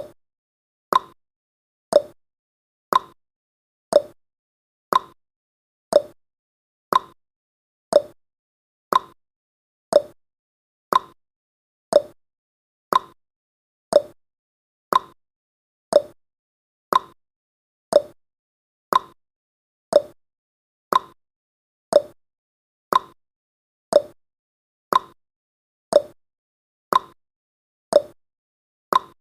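Countdown timer's clock tick-tock sound effect: one short, sharp tick every second, alternating between a higher 'tick' and a lower 'tock', with silence between.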